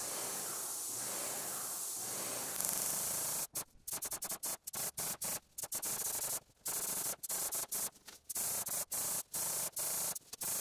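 Airless paint sprayer's gun hissing as it sprays primer onto drywall. The hiss is steady for the first few seconds, then cuts in and out many times in quick short spurts with brief gaps.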